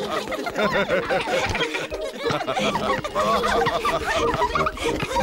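A group of cartoon children's voices laughing and chattering together, without clear words.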